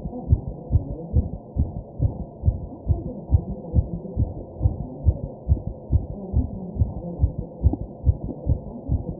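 A man's fast heartbeat, recorded close to the chest: steady, rapid lub-dub thumps, about two to three a second, with the noise of deep breathing underneath.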